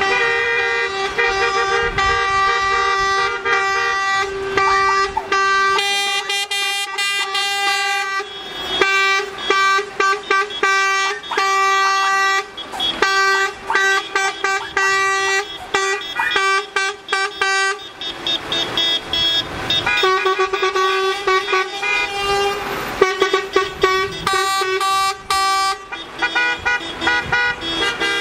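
Truck horns honking again and again as a line of lorries drives past, in long held blasts and short toots, several horns sounding over one another. The lorries' engines run faintly beneath.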